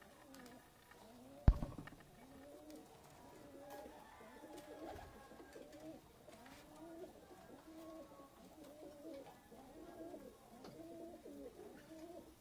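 Domestic pigeons cooing, one arched coo after another without a break. A single sharp knock about a second and a half in.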